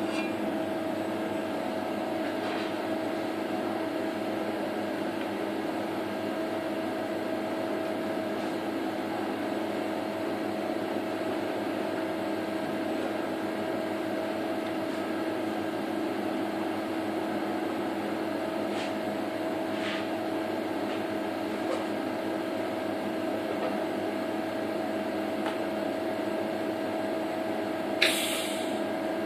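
Steady hum of a small TIG welding set-up during TIG welding of steel dome nuts, with a few faint ticks and one short, sharp crackle near the end.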